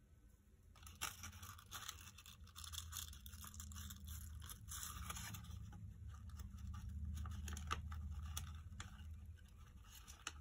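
Paper rustling and crinkling with small scrapes and clicks, as a paper flower and a kraft-paper envelope are handled and pressed together; it starts about a second in.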